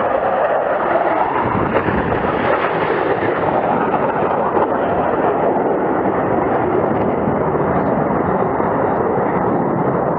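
Loud, steady jet noise from the Blue Angels' formation of F/A-18 Hornets passing overhead and moving away, a heavy even roar with no clear pitch.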